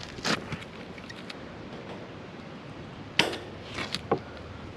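A few short clicks and knocks of hand tools and metal being handled, with the strongest a little past three seconds in, over steady outdoor background hiss.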